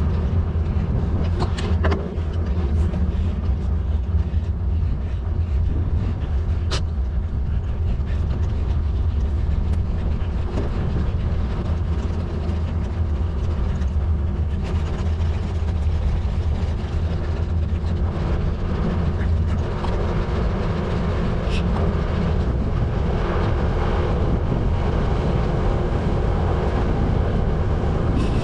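Steady low wind rumble buffeting the microphone, mixed with tyre noise on a tarmac lane, from a moving bike. A few brief clicks or rattles cut through, one about seven seconds in.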